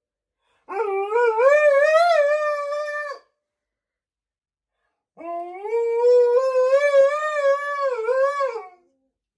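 Alaskan malamute howling: two long howls with a silent pause between, each sliding up in pitch at the start, then holding and wavering before dropping off at the end, the second longer than the first.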